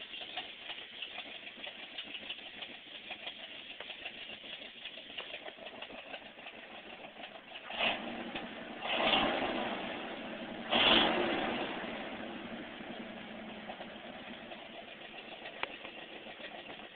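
1979 Ford F-150 pickup engine running at idle, heard from the cab, with three louder bursts about 8 to 11 seconds in.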